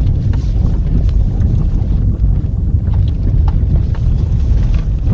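Kia Cerato driving on the street, heard through a microphone mounted in the engine bay by the right front wheel: a steady, heavy road-and-wind rumble with scattered light knocks from the front suspension. This is the suspension noise the owner complained of, which the mechanic expects to cure by replacing the shock absorber.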